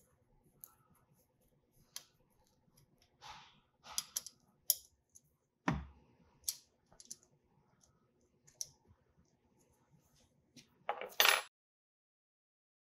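Small metallic clicks and light knocks of hand work on a spring balancer's aluminium cable drum: a hex key turning a lock plug and parts being handled, with one heavier thump about halfway through. A louder burst of handling noise comes just before the sound cuts off near the end.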